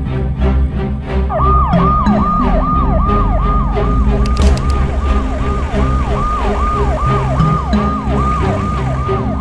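Ambulance siren sounding in rapid, repeated falling sweeps, about two and a half a second, starting about a second in, over background music.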